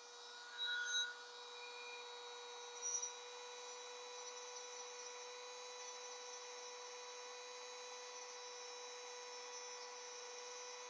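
Dremel rotary tool with a burr bit running at a steady speed, a steady high whine, while countersinking drilled holes in a rubber boot sole. A few brief higher squeaks come in the first few seconds.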